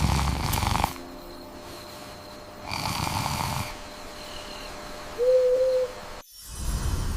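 Slow snoring, a noisy breath about every three seconds, with one short hoot-like tone about five seconds in.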